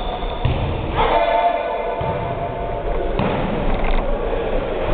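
Indoor volleyball rally in a gymnasium: players moving on the court and the ball being played, over a steady hall rumble. About a second in, a held, pitched sound rings out and fades over a second or two.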